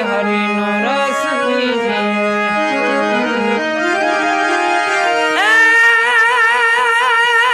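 Harmonium playing a bhajan melody: sustained reed notes over a held low drone note, with a louder, wavering phrase coming in about five and a half seconds in.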